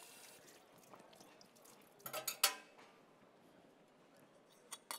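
Faint room tone broken about two seconds in by a short cluster of clinks from dishes and utensils on the kitchen counter, with a couple of lighter clicks near the end.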